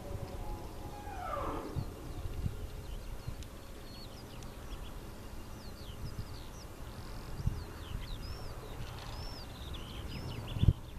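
Small birds chirping in short, high calls over a low steady rumble, with a falling whine about a second in and a single thump near the end.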